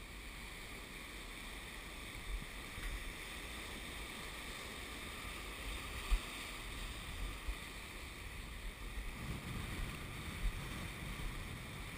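Shallow surf washing in over a sandy beach, a steady hiss of water, with low wind rumble on the microphone.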